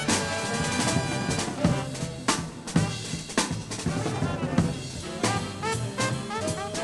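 Swing big band playing, with drum kit strokes and brass, and an open trumpet soloing in short, clipped phrases in the second half.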